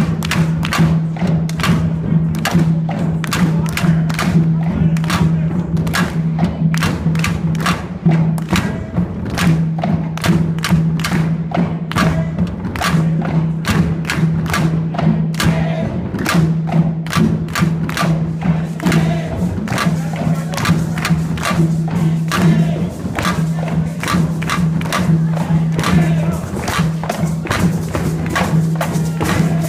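A drum circle of djembes and other hand drums beaten together in a steady, even rhythm.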